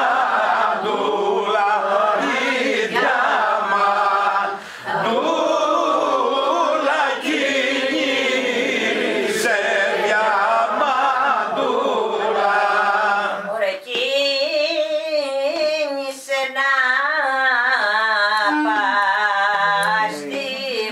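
Greek demotic folk song from Arcadia, sung with no clear instrumental backing: several voices sing together, then about two-thirds of the way through a single voice takes the lead with a wavering, ornamented melody.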